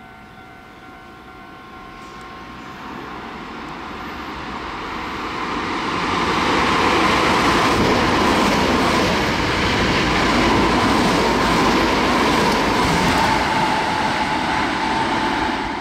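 Hankyu electric train passing at speed, growing louder from about two seconds in and loud from about six seconds, with a high motor whine that sinks slightly in pitch over the rumble of the cars. The sound cuts off abruptly at the end.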